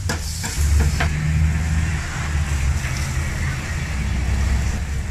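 A metal spatula clicking against a steel flat-top griddle a few times in the first second, over a steady low rumble.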